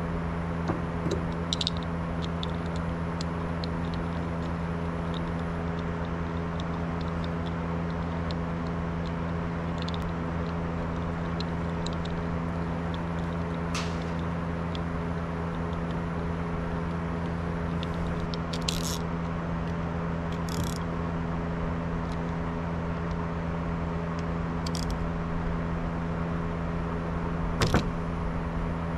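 A steady low machine hum, with scattered light clicks and clinks of small metal parts being handled, the loudest pair near the end.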